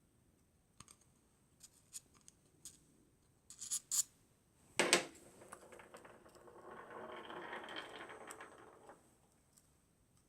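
Small metal clicks and taps from working the trigger-group pins out of a Ruger 10/22 receiver, with a sharp click just before five seconds in, followed by about three seconds of scraping and rubbing that stops near the end.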